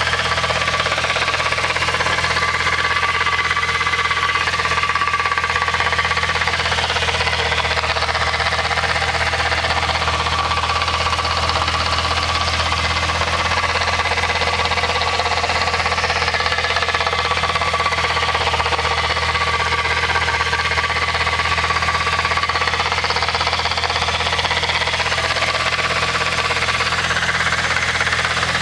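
VW Mk3 VR6 running, with a steady mechanical noise and a whine from the transmission that swells and fades every few seconds: the sign of a bad transmission bearing.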